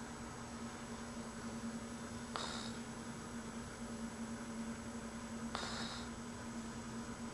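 A sleeping young child snoring: two short snores about three seconds apart, at the pace of her breathing. A steady low hum runs underneath.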